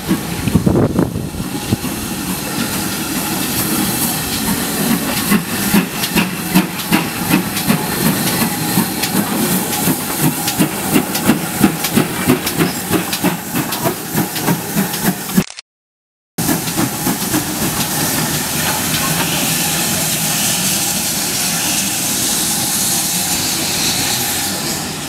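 GWR Prairie tank steam locomotive 5199 working past, its exhaust chuffing in even beats that grow louder for the first half. After a break, a steady hiss of escaping steam.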